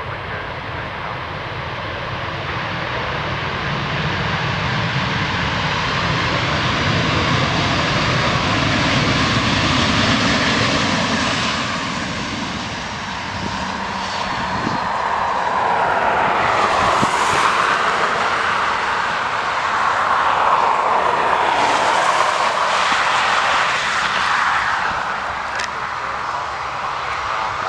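Twin jet engines of a KLM Boeing 737-800 running as the airliner speeds along the runway. The sound swells over the first ten seconds, eases briefly, then grows again with a higher-pitched rush for several seconds before easing a little near the end.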